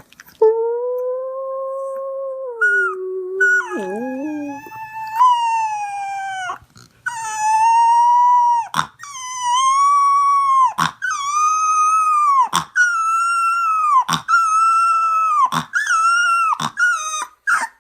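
A dog howling: first one long held howl, then a string of shorter howls, each ending with a drop in pitch.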